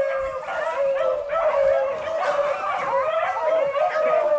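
A pack of beagles baying together, many voices overlapping without a break: rabbit hounds in full cry on a rabbit's trail.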